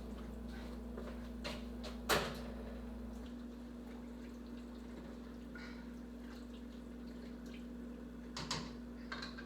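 Quiet kitchen with a steady low hum, a single sharp knock about two seconds in, and a few faint clatters near the end.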